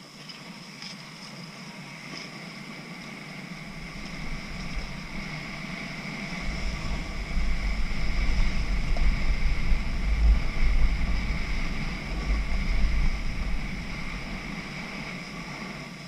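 Wind buffeting on an action camera's microphone while skiing downhill, over the hiss of skis sliding on packed snow. The low rumble builds a few seconds in as speed picks up, is strongest in the middle, and eases off near the end.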